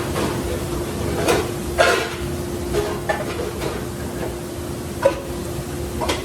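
Dishes and utensils clanking now and then, with about eight sharp knocks, over a steady hum of kitchen machinery.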